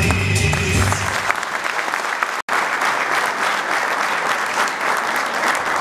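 A song ends about a second in and a large seated audience applauds. The clapping has a split-second break a little before halfway.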